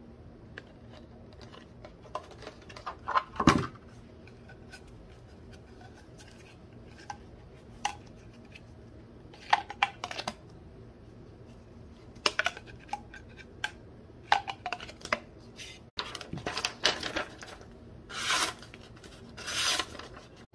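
Handling noises from a Morakniv Kansbol fixed-blade knife and its plastic sheath: scattered clicks, taps and rubbing, one louder knock about three and a half seconds in. Near the end, two short rasping strokes of the blade slicing through sheets of paper.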